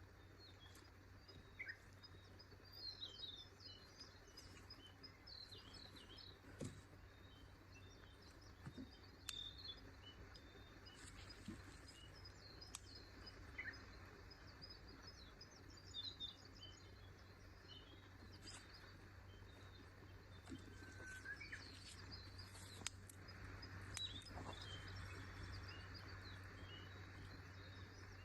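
Forest birds chirping and calling on and off, faint, over a steady low hum, with a few soft clicks here and there.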